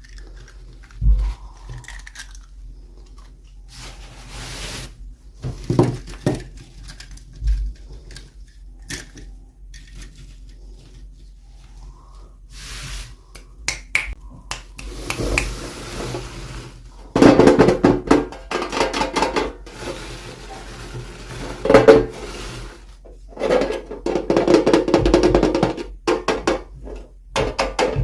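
Scattered clicks, taps and rustles of small plastic toy packaging being handled. Louder music comes in over the second half.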